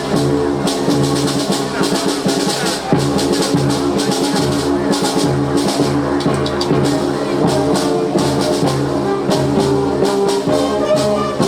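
A band playing a piece of music, held notes over quick, steady percussion.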